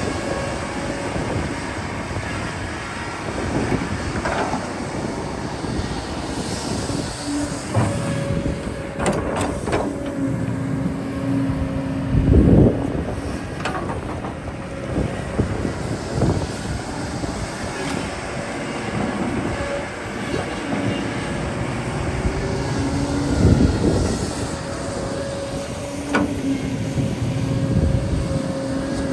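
Excavator's diesel engine running under load, with a held hydraulic whine that comes and goes and scattered metallic clanks and knocks from the steel bucket and tracks, the loudest about twelve seconds in.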